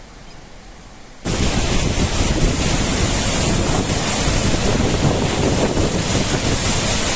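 Large waterfall rushing, a loud steady wash of falling water mixed with wind buffeting the microphone. It cuts in suddenly about a second in, over quieter outdoor background.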